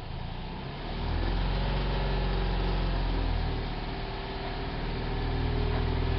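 1972 VW bus's air-cooled flat-four engine running, revving up about a second in, easing off a little after the middle, then rising again near the end.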